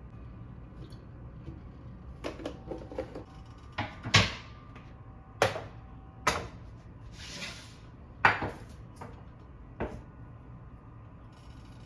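Dishes and utensils being handled on a kitchen counter: a few light clicks, then several sharp knocks and clinks a second or so apart, with a short swish about seven seconds in.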